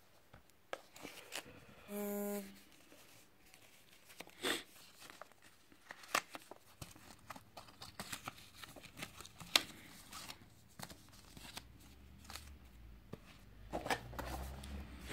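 Cardboard cologne box and paper inserts being handled: scattered rustles, taps and clicks. A brief buzz about two seconds in.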